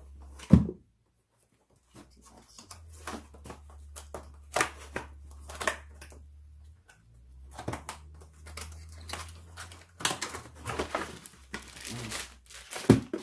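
Cardboard pillow box being cut and opened by hand: scissors cutting tape, cardboard flaps scraping, and plastic wrap crinkling as the vacuum-packed pillow is pulled out near the end. A sharp knock comes about half a second in and another near the end.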